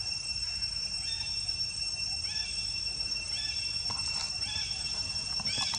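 Baby macaque giving short, high calls that rise and fall, about one a second, over a steady high-pitched insect drone.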